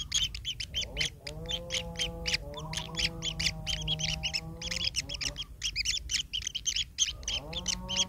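Kingfisher nestlings in their burrow nest calling continuously, a rapid run of short high calls at about five or six a second, typical of begging for food. A lower steady hum sits beneath them for a few seconds in the first half and again near the end.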